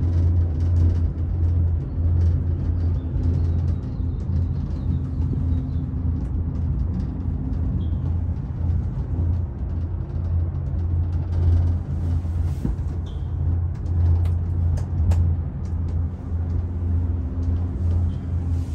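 Steady low rumbling hum inside a moving cableway gondola cabin, with a few faint clicks and rattles.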